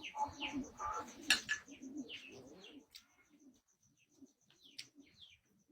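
Birds calling: short falling chirps from small birds, mixed with the low cooing of a dove. Busiest in the first few seconds, then sparser.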